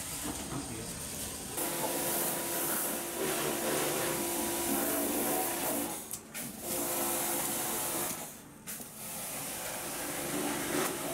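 Kärcher electric pressure washer running, a steady motor hum with hissing spray, starting about a second and a half in. It drops away briefly twice, about six and eight and a half seconds in.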